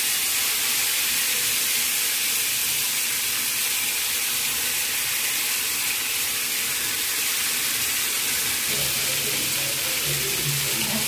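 Marinated chicken pieces frying in oil in a non-stick pan: a steady sizzling hiss, the chicken just put in.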